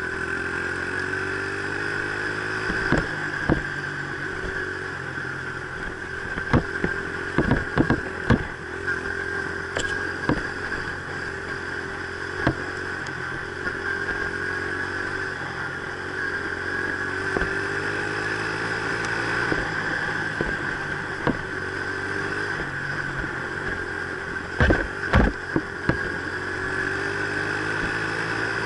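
Dirt bike engine running while riding a trail, its pitch rising and falling as the throttle opens and closes. Several sharp knocks and clatters come in clusters along the way.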